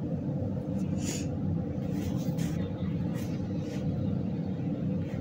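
Steady low rumble with a few soft brushing or rustling noises.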